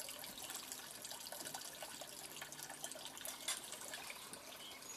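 Faint water trickling and lapping at the waterline, a steady patter of small splashes and drips.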